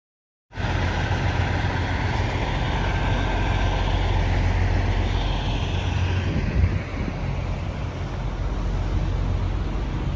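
Diesel semi-truck running steadily, with a low, even engine drone and a brief knock about six and a half seconds in.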